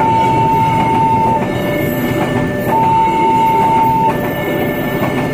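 New electronic level-crossing siren sounding a two-tone high–low alarm, each tone held about a second and a half, over the rumble of a train passing through the crossing.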